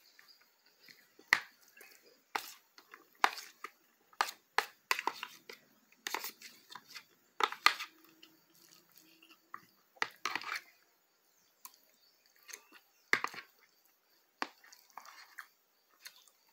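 Close-miked eating sounds: wet chewing and mouth clicks with a fork clicking and scraping against a plastic bowl, in irregular short sharp sounds every half second to a second.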